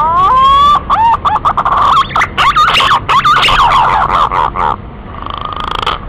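Male green pigeon (punai) song: rising whistles that break into a fast run of wavering, warbling whistled notes, then a softer rising whistle near the end.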